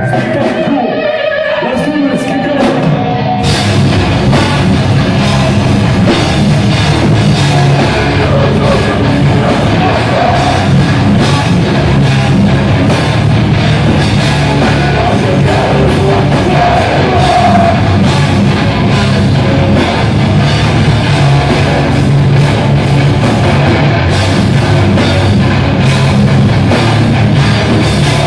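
Live hardcore metal band: a voice over the microphone for the first few seconds, then about three seconds in the full band comes in loud, with distorted electric guitars, bass, drums and vocals.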